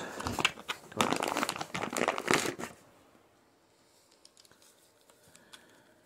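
Clear plastic bag crinkling and rustling as a handlebar switch and its coiled cable are pulled out of it. It stops a little under three seconds in, leaving only a few faint ticks.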